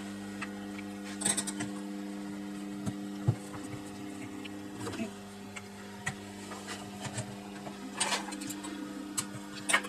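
Scattered clicks and knocks of hand tools and small parts as a chainsaw is taken apart by hand, over a steady hum.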